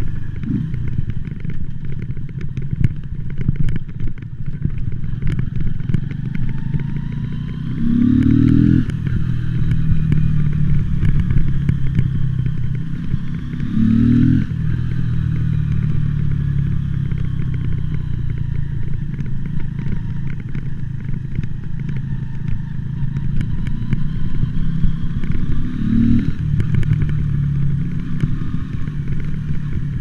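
Mutt Akita motorcycle's single-cylinder engine running at low city speed, its revs climbing briefly about a third of the way in, near halfway, and again near the end. Scattered crackling clicks come from a fault in the camera's recording.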